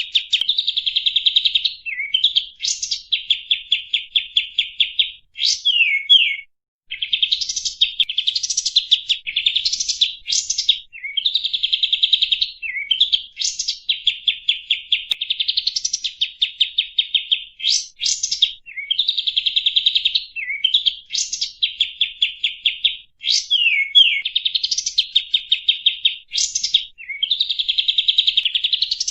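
Kapas tembak bulbul singing: fast chattering trills of repeated notes, broken every second or two by quick rising whistles, phrase after phrase, with one short break about six seconds in.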